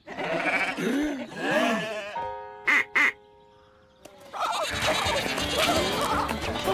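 Cartoon soundtrack. A few rising-and-falling vocal calls come first, then a held musical chord broken by two short, sharp sounds. From about four seconds in, busy, loud music with action sounds takes over.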